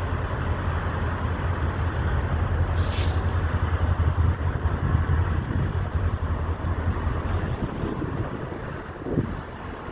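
Diesel locomotive rumbling steadily as it creeps toward the crossing, with a short hiss about three seconds in.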